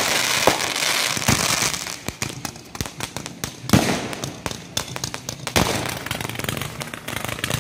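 Fireworks going off in a dense finale barrage: a rapid, continuous crackle of small cracks with several bigger bangs standing out, about half a second, just over a second, nearly four seconds and five and a half seconds in.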